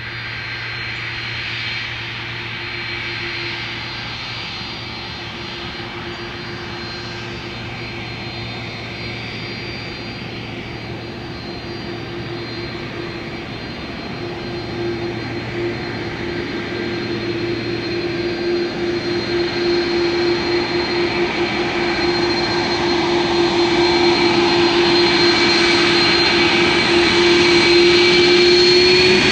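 KLM Airbus A330-300's jet engines during take-off: a steady whine and rumble that grows louder, with the engine tones rising in pitch near the end.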